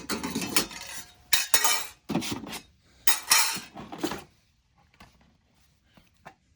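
Mounting plates clattering and clinking as they are handled and set down, a run of sharp knocks through the first four seconds, then only faint handling noises.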